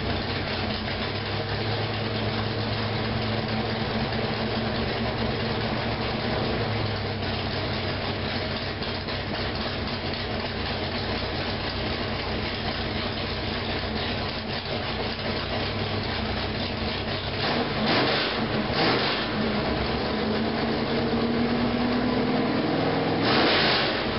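Freshly rebuilt 402 cubic-inch big-block Chevrolet V8 with a roller camshaft, running on an engine dyno through long-tube headers just after starting. It idles steadily, is blipped twice by hand at the carburetor about two thirds of the way in, then climbs slowly in speed to another rev near the end.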